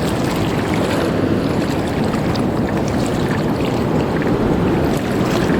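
Steady rush of wind on the microphone and shallow surf water moving in a strong current.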